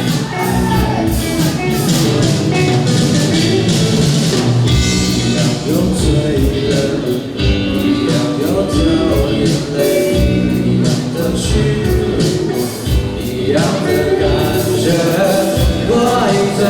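Rock band playing live, with a steady drum beat under the instruments and a sung vocal line.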